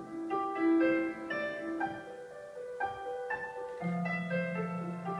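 Piano music: a melody of separate notes, with a low note entering and held from about four seconds in.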